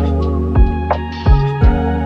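Background music: sustained organ-like keyboard chords over a deep bass line with regular drum hits.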